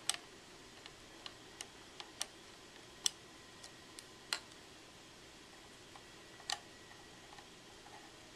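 Small sharp metal clicks and taps, irregular and scattered, as the presser foot, plates and screws of a Singer 20U industrial sewing machine are handled and worked with a screwdriver. The machine's motor is off.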